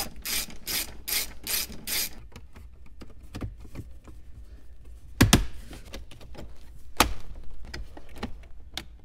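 Hand ratchet clicking as fasteners are driven on the dash around the new radio: a run of quick clicks over the first two seconds. Then two loud sharp snaps, about 5 and 7 seconds in, as the plastic dash trim panel is pressed home into its clips.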